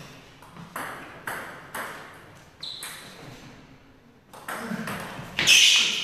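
Table-tennis ball clicking sharply off bats and table during a doubles rally, a string of quick hits. Near the end there is a louder, longer burst of noise.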